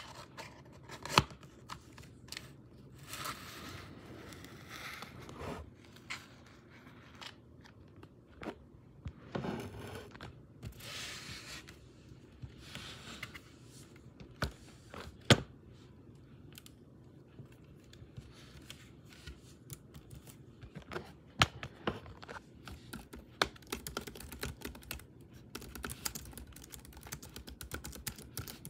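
Hands handling and tapping on a sticker-covered laptop lid: occasional sharp taps between stretches of rustling and scratching. In the last few seconds comes fast typing on the laptop's keyboard.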